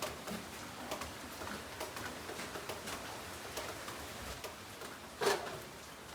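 Water dripping from a leak, irregular small drips about two a second, with one louder short sound about five seconds in.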